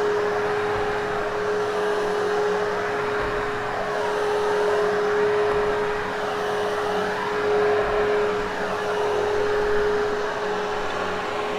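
Hoover HushTone upright vacuum cleaner running steadily on carpet, its motor giving a constant whine over the rush of air.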